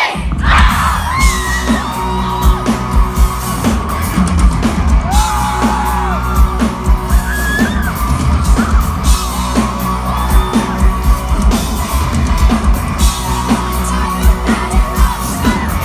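Live pop band playing with a heavy bass and a steady beat behind a woman singing into a microphone, with yells from the crowd.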